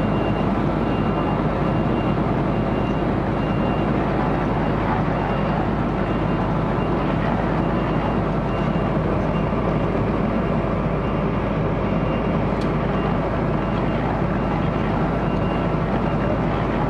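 Fire engine's engine running steadily, a continuous low rumble with a faint high tone pulsing on and off.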